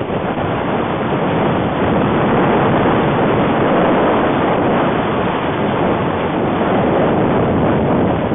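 Loud, steady wind rush on the microphone of a camera carried by a skier at speed, with the rush of the skis over the snow, swelling a little a couple of seconds in.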